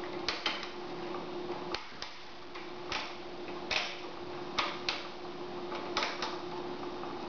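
Clicking of the front-panel controls on a Tektronix 466 storage oscilloscope as its knobs and push-button switches are worked: about ten sharp clicks, several of them in close pairs. A faint steady hum runs underneath.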